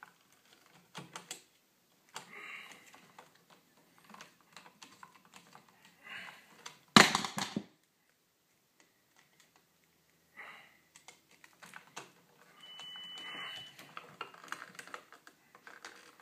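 Small metallic clicks and scrapes of a screwdriver backing out the terminal screws on an old electrical outlet and the wires being handled, with one loud clatter about seven seconds in. A short, steady high-pitched tone sounds for about a second near the end.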